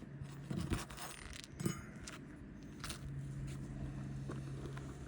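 Metal roofing tool scraping and clinking against shingles as they are worked loose, with two sharper knocks about a second apart; a steady low hum comes in about three seconds in.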